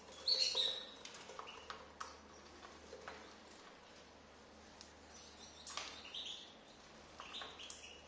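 Two cockatiels giving short, high chirps while feeding from a seed dish, the loudest call about half a second in, with scattered sharp clicks of their beaks working and cracking sunflower seeds.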